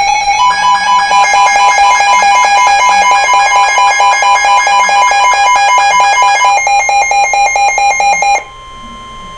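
Emergency Alert System attention signal: a loud, harsh two-tone alarm from a speaker, announcing an emergency alert. It cuts off abruptly about eight and a half seconds in, leaving a much quieter single steady tone.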